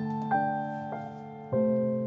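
Slow, soft solo piano music of held notes and chords, with a fuller chord struck about a second and a half in.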